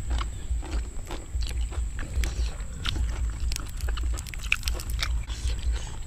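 Close-miked chewing: irregular crunchy bites and wet mouth clicks from people eating raw yardlong beans and meat salad, over a steady low rumble.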